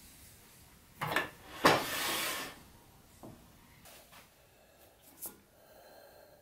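Handling noise as an oak spoon blank is fitted between centres on a wood lathe: a knock, then a louder knock that runs straight into a short scrape of less than a second, and a few light clicks later on.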